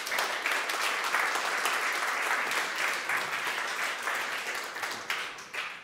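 Audience applauding: a dense patter of many hands clapping that holds steady and then fades away near the end.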